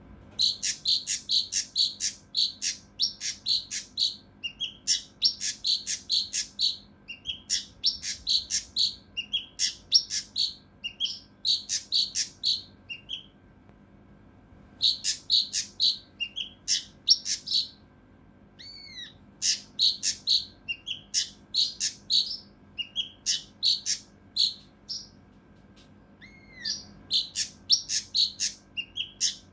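Kinoi (cucak rante mas) singing its rough, tightly packed "tembakan" phrases: fast runs of sharp, high chirps, about four or five a second, each run lasting a few seconds with short breaks between. A couple of softer rising-and-falling whistles come in the gaps.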